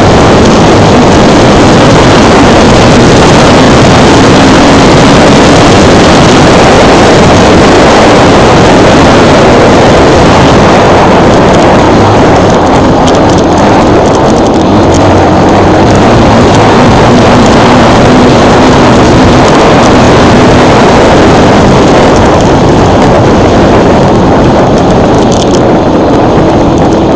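Off-road motorcycle engine running under throttle, very loud and distorted, mixed with wind rushing over the microphone. It cuts off suddenly at the end.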